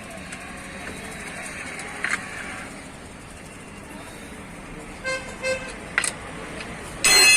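Vehicle horns: two short beeps about five seconds in, then a loud honk near the end, over steady traffic background, with a couple of faint metal clicks from the wheel-nut wrench.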